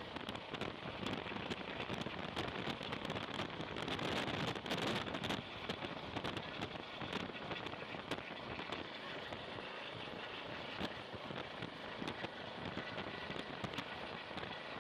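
Wind rushing and buffeting on a phone microphone, with irregular crackles and clicks throughout, loudest about four seconds in.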